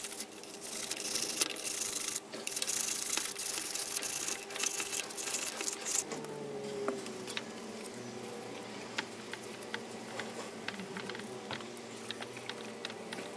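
A hand scuffing the bare sheet-metal body of a scale model with an abrasive, preparing it for paint. This is a hissing scrape, repeated in strokes with short gaps. About six seconds in it gives way to quieter wiping with a cloth and small clicks.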